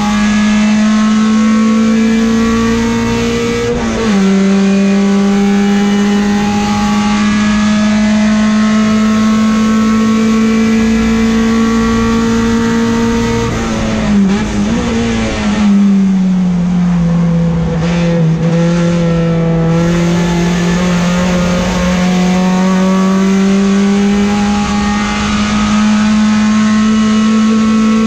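Peugeot 405 STi race car's four-cylinder engine at high revs, heard from inside the cabin. The revs climb steadily and drop sharply at a gearchange about four seconds in, then climb again. About halfway through they waver and fall off the throttle, then build back up near the end.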